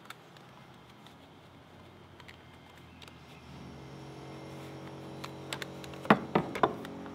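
A steady low hum starts about halfway through. Near the end come a few sharp clicks and knocks as the white PVC overflow pipe of a bathtub drain kit is handled and fitted.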